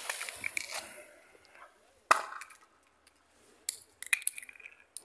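A lit firework fuse hissing and sparking, fading out over the first second and a half. About two seconds in there is a single sharp crack, and a few small clicks and knocks follow near the end.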